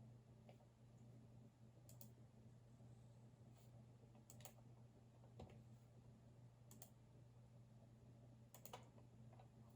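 Faint, unhurried computer keyboard key presses and clicks: a handful of separate taps spread irregularly over several seconds, a few in quick pairs, over a steady low hum.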